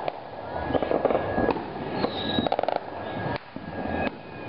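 Fireworks and firecrackers going off all around over a constant crackle, with single sharp bangs and a quick string of firecracker pops about two and a half seconds in.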